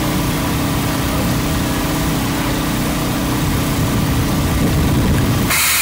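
A small engine running steadily, with a constant hum, over a loud even hiss. A short burst of sharper hiss comes near the end.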